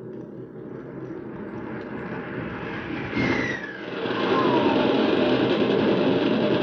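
Radio-drama sound effect of a military aircraft's engine roar building as it dives in on an attack run, with a falling whistle a little after three seconds, then a loud steady roar.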